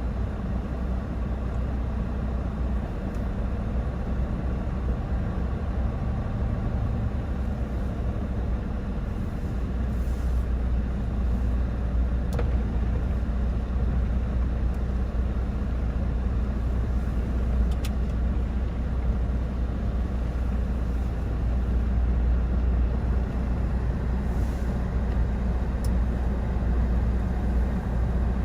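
Steady low rumble and road noise of a moving vehicle, with no change in pace.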